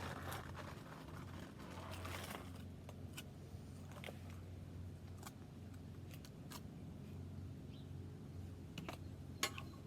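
Faint scraping for the first couple of seconds, then scattered light clicks and crunches, from peanut butter being spread on a waffle cone and the cone being handled, over a low steady hum.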